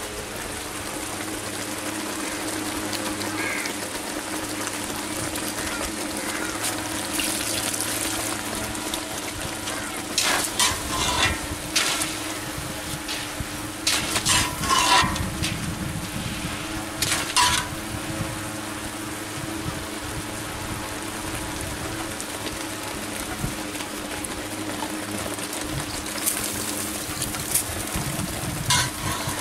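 Steady hissing noise with a low hum, broken by a few short, sharp sounds near the middle and again near the end.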